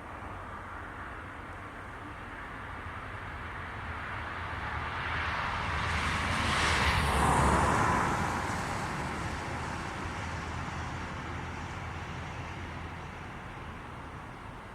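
A road vehicle passing by, its tyre and engine noise building to its loudest about halfway through and then fading away.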